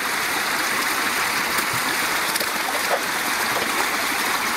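Steady rush of flowing water, with a few small splashes as a hooked ugui (Japanese dace) is worked into a landing net at the surface.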